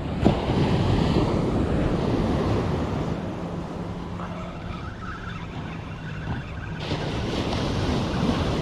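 Surf washing onto the beach with wind noise on the microphone; the wash swells again about seven seconds in. A short knock sounds just after the start.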